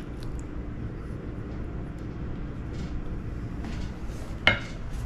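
Knife and fork cutting through fried chicken on a ceramic platter, over a steady low background hum. There are a few faint clicks and one short, ringing clink of metal cutlery against the platter about four and a half seconds in.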